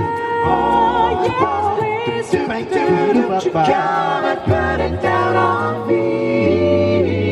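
Male a cappella group singing a pop song in close amplified harmony, with a deep bass voice under the chords and a steady beat of vocal-percussion clicks.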